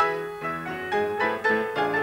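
Piano played solo: a melody of single notes and chords struck one after another at a brisk pace, with a strong chord right at the start.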